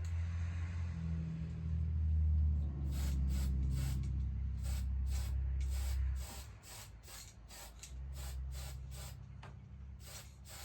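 Clear gloss lacquer spraying onto a guitar body in a quick run of short hissing spurts, starting about three seconds in, over a low steady hum that drops away about six seconds in.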